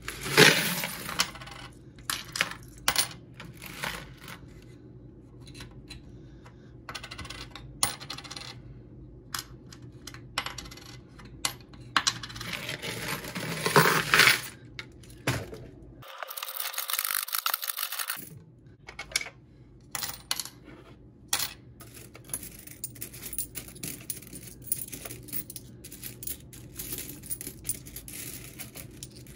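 Loose mixed coins (quarters, dimes, nickels and pennies) clinking as they are shaken and poured out of a clear plastic bottle onto a mat. There are two loud rushes of pouring, one just after the start and one about twelve to fifteen seconds in. In between and afterwards come many single clinks as coins are picked out and dropped by hand into a sorting tray.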